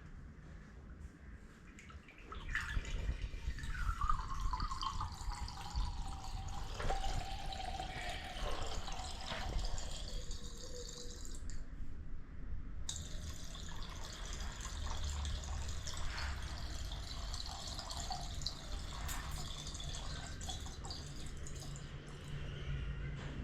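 Water running and splashing into a drain, starting about two seconds in. A gurgling tone falls in pitch over the next several seconds.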